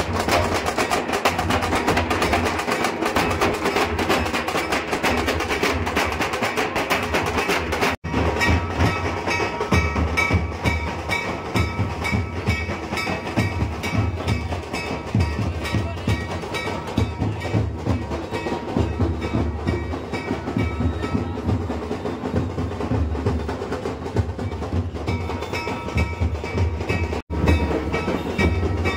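Loud procession band music driven by large bass drums beaten with sticks, with dense percussion throughout. From about a third of the way in, sustained melody tones sound over the drumming. The sound breaks off for an instant twice, once about a third of the way in and once near the end.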